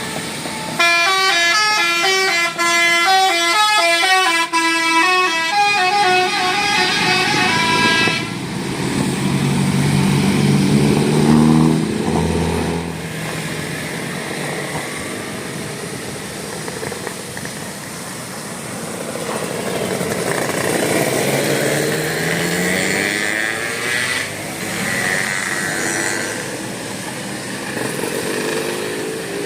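Bus telolet Basuri musical horn playing a quick tune of stepping notes for about seven seconds, then bus engines passing, their pitch rising twice.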